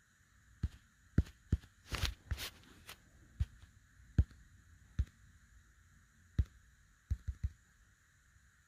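Soft, irregular thumps and taps of a phone being handled with its microphone against cloth, about a dozen over several seconds, with a brief cluster near the end, over a faint steady hiss.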